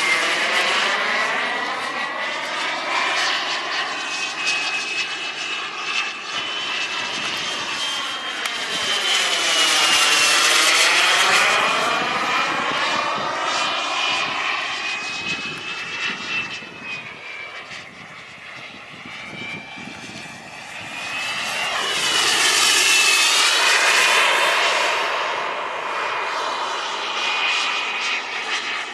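Radio-controlled model Tornado jet flying past, its engine giving a steady high whine that drifts in pitch. The sound swells loudest as the jet passes close about ten seconds in and again about twenty-three seconds in, and fades between.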